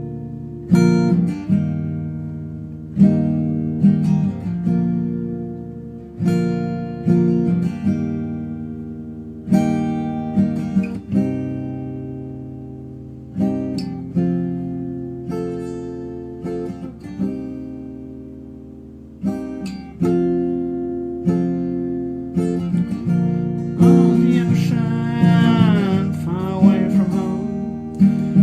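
Background music: acoustic guitar strumming and picking chords that ring out and fade, with a sung line coming in near the end.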